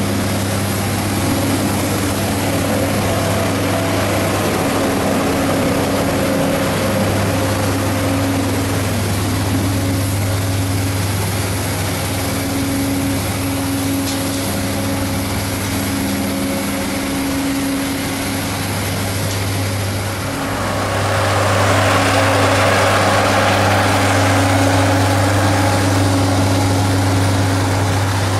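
Steady machine drone close beside a parked Boeing C-17A Globemaster III: a strong low hum with a few steady higher tones over it. About 21 seconds in, a louder rushing hiss joins in and holds.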